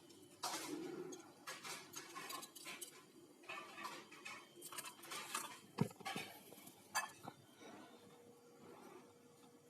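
Irregular clinks, taps and rustling of small hard objects being handled, with a faint steady hum coming in near the end.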